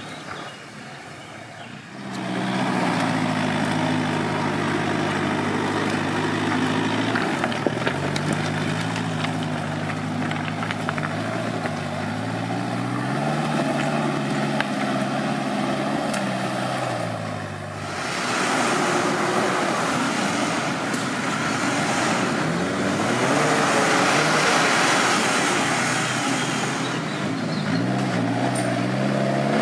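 An off-road 4x4's engine revving, its pitch rising and falling repeatedly, over a rushing noise of tyres working through mud. The rush grows louder in the second half.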